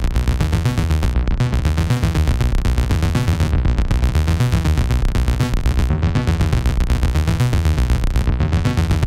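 Behringer Neutron's analog oscillator playing a sequenced bass line. Its own output is fed back through a matrix mixer into its wave-shape control, so the tone modulates its own shape. The short repeating phrase comes round about every two and a half seconds.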